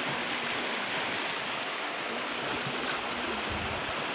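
Steady rushing noise of a shallow creek's flowing water.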